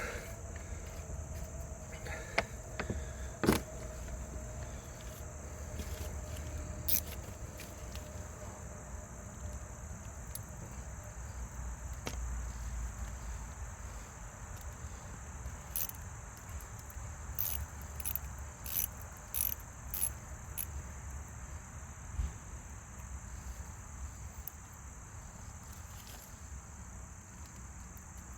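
Steady high-pitched chirring of insects, likely crickets, running throughout over a low rumble. There are a few sharp clicks or taps, with a quick cluster of them around the middle.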